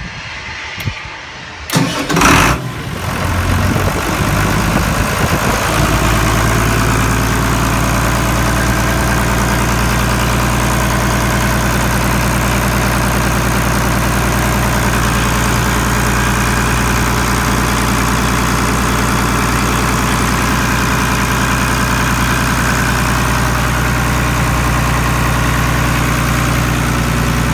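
Global 2100TE deicing truck's engine starting: it catches about two seconds in, builds over the next few seconds, then settles into a steady idle.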